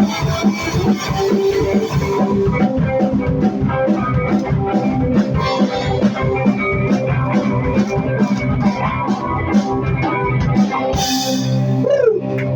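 Live rock band playing an instrumental passage to close a song: electric guitar and keyboard notes over a steady drum-kit beat.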